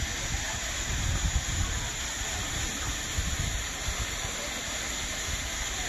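Wind buffeting the microphone outdoors: a gusty low rumble over a steady hiss, stronger in the first second and a half.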